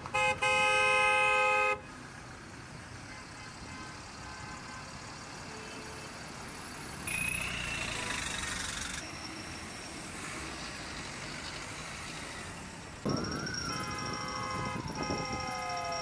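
A car horn blaring, cutting off about two seconds in, followed by the steady noise of street traffic. Near the end another sound of several steady tones begins, with one tone sliding down in pitch.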